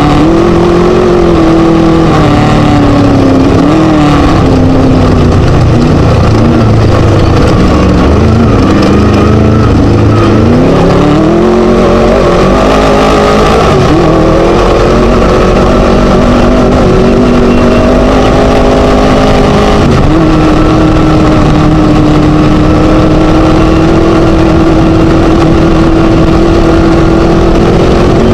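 Class 1 Chenowth DR2 desert race buggy's Scat engine running hard, very loud. Its revs rise and fall repeatedly for the first dozen seconds, then hold steadier and settle slightly lower about twenty seconds in. A constant noisy rush lies under the engine.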